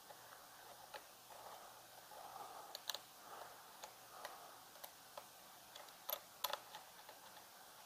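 Faint scattered clicks and ticks of small screws being undone on a GPU water block with a hand tool. There are a few sharper clicks about three seconds in and two more a little after six seconds.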